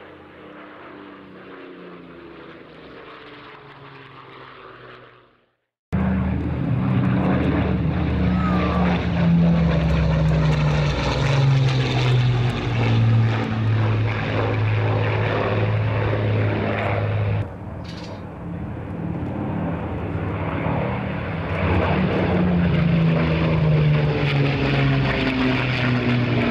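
A de Havilland Mosquito flying past on its two Rolls-Royce Merlin V12 engines: a many-toned propeller-engine drone whose pitch slides down as the aircraft passes. It is quieter at first, cuts out briefly about six seconds in, then comes back much louder, eases a little past the middle and swells again near the end.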